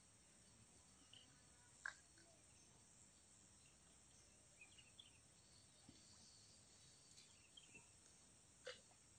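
Near silence: faint outdoor ambience with a steady high insect drone, like crickets, and a few faint chirps. Two brief faint clicks, about two seconds in and near the end.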